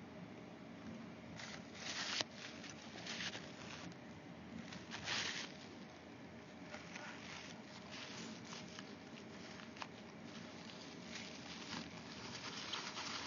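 Faint, irregular scraping and rubbing as old thermal paste is worked off a laptop GPU die with a small plastic tool, with a sharp click about two seconds in.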